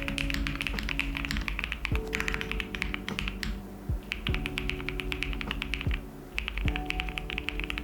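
Typing on a Luminkey80 mechanical keyboard fitted with Iced Latte switches: fast runs of key clicks, breaking off briefly twice, over background music.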